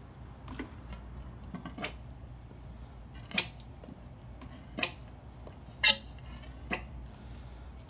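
Scattered sharp clicks and knocks, about seven in all, as a Kawasaki KZ400 front fork leg is handled and tipped over a plastic drain funnel. The loudest comes about six seconds in.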